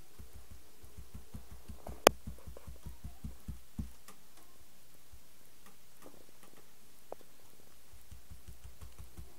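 Damp sponge dabbing textile ink through a paper stencil onto a shirt on a table: a quick, even run of dull low thumps, several a second, that pauses for a few seconds midway and starts again near the end. A single sharp click about two seconds in stands out above the dabbing.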